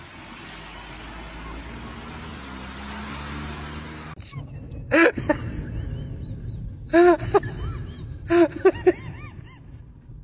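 A car drives close past, its engine and tyre noise rising steadily, then cuts off abruptly about four seconds in. Several short, high-pitched voice exclamations with rising-and-falling pitch follow.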